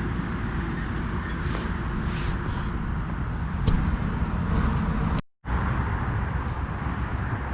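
Steady outdoor background noise with a low rumble, cutting out completely for a moment about five seconds in.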